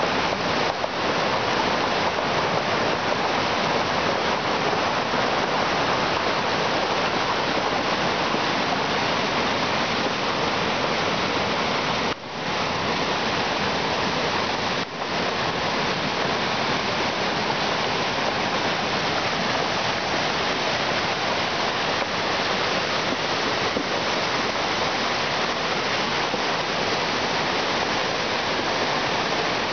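Mountain creek in flood after days of storm rain, a fast muddy torrent rushing over rocks in a loud, steady roar of water.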